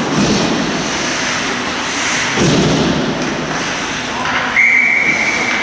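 Ice hockey rink noise with shouting voices and knocks, then about four and a half seconds in a referee's whistle blows one long, steady blast.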